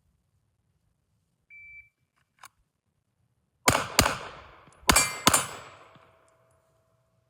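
A shot timer's start beep, then four 9mm shots from a Glock 45 pistol fired in two quick pairs about a second apart. A faint steady ring from the hit steel target lingers after the last shot.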